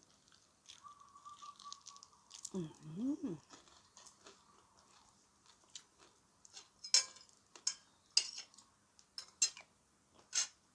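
Close-up chewing of crispy fried snakeskin gourami tail, with a series of sharp, loud crunches in the second half. A short voiced murmur about three seconds in.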